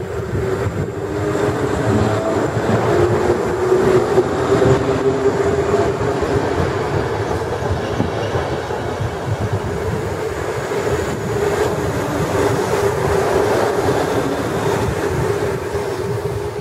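Italian regional electric train of ALe801/940 multiple units and E464 locomotives pulling out and rolling past close by. A steady rumble of wheels on rail runs under a constant motor hum, loudest a few seconds in and easing as the last carriages clear near the end.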